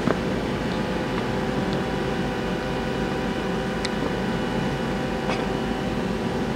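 Steady hum of a powered-up Doosan Puma GT-3100L CNC turning center idling, with the spindle stopped, holding several constant tones. A few faint light clicks come as the manual tool-setter arm is swung down and back up.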